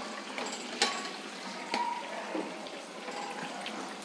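Banana appam batter deep-frying in hot oil: a steady bubbling sizzle with crackle. Two sharp taps stand out about a second apart, the second one ringing briefly.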